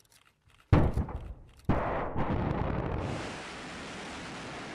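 Rocket launch sound effect: a sudden blast under a second in, a second blast about a second later, then a steady rushing roar that settles to a lower level.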